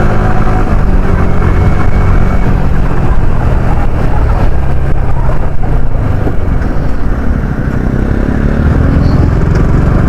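Yamaha R15's 155 cc single-cylinder engine running while the motorcycle is ridden, mixed with wind and road noise. The engine pitch rises near the end as it picks up revs.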